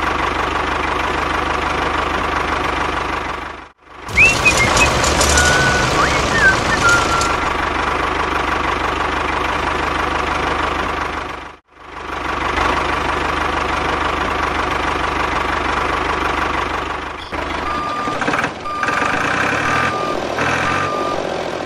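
Tractor engine sound running steadily, cutting out briefly twice. Near the end, a series of short, evenly pitched beeps.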